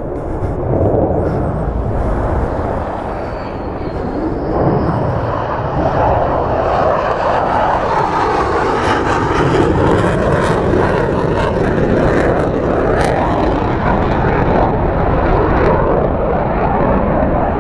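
Military fighter jet engines, loud and steady, the noise building over the first few seconds.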